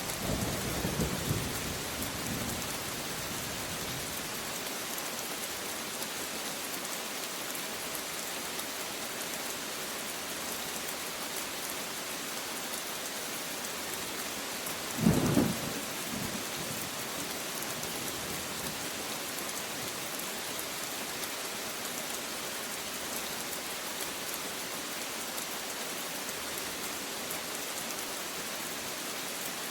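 Steady rain falling, with a low rumble of thunder dying away in the first few seconds. About halfway through comes a single sharp, loud thunderclap lasting about a second.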